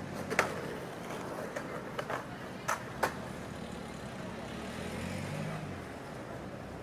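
Road traffic with cars and light trucks, a steady wash of passing-vehicle noise. A handful of short sharp knocks come between about half a second and three seconds in, and a low rumble swells briefly around five seconds in as a vehicle goes by.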